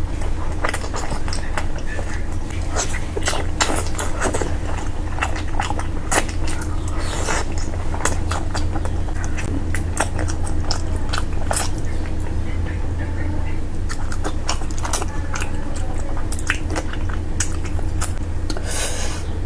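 Close-up eating sounds of a person chewing curry: many short wet mouth clicks and smacks at an irregular pace over a steady low hum, with a longer breathy or slurping noise near the end.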